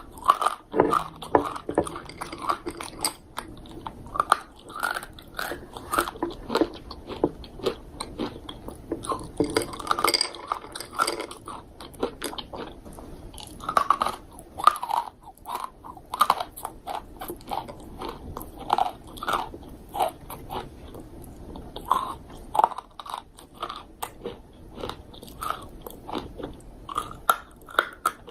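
Close-up crunching and chewing of crunchy dried fruit, with many sharp, irregular crunches bite after bite.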